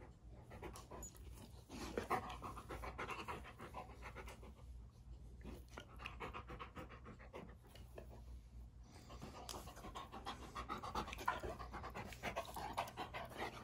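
Golden retriever panting in quick runs, pausing briefly twice.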